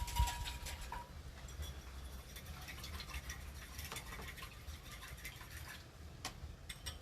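Scattered light clicks and taps of kitchen utensils against bowls, over a steady low hum. A faint thin tone stops about a second in.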